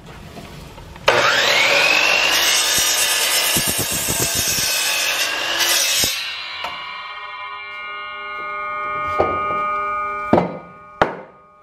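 A DeWalt 12-inch miter saw starts with a rising whine about a second in and cuts through a 4x4 treated pine post for about five seconds. The blade then spins on with a ringing whine, and a few sharp knocks come near the end.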